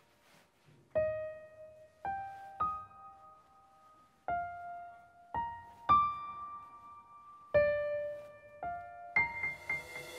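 Background music: a slow, quiet piano melody of single notes struck about a second apart, each ringing and fading, with a quicker run of notes near the end.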